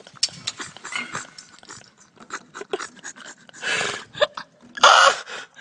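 Bicycle frames and wheels rattling and clanking as a man struggles tangled among them, with two loud breathy bursts, about three and a half and five seconds in.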